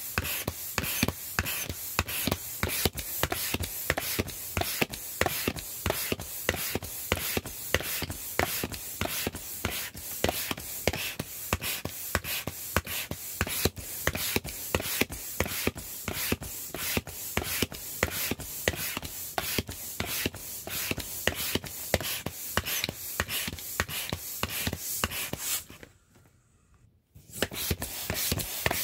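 The vinyl skin of an inflatable rooster crackling and creaking as it fills with air, a rapid run of crinkles several times a second. The sound drops out for about a second near the end.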